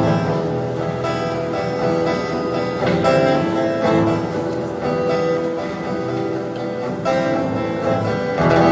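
Live music with a plucked acoustic guitar to the fore and steadily held notes above it.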